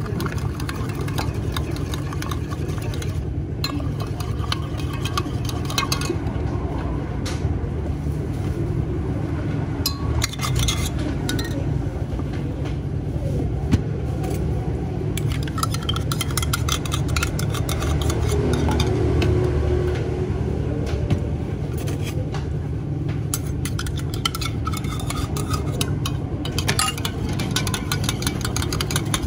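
Metal spoons clinking and scraping in stainless steel cups as drinks are stirred, with many short clinks, over a steady low machine hum.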